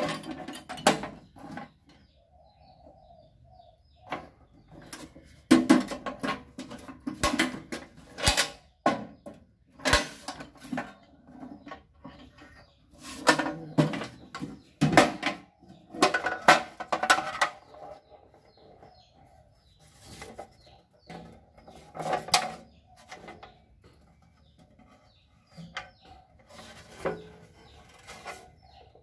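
Metal tool box and hand tools being handled: irregular clusters of clanks and clinks as tools knock against each other and the box, with short pauses between.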